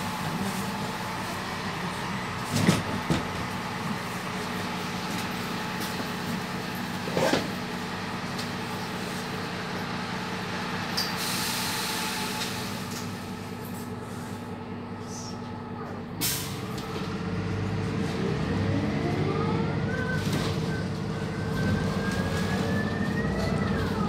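Inside a Van Hool NewA309 city bus, its MAN D0836 diesel engine idles steadily, with a couple of knocks and a hiss of compressed air from the air brakes about halfway through. About two-thirds of the way in there is a clunk, then the engine pulls harder and a whine rises in pitch as the bus moves off. The whine drops sharply near the end at a shift of the ZF automatic gearbox.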